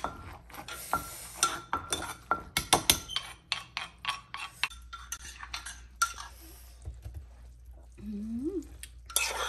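Wooden pestle and spoon knocking and clinking in a mortar as a shrimp noodle salad is pounded and mixed. A quick run of sharp knocks thins out after about three and a half seconds into a few scattered ones.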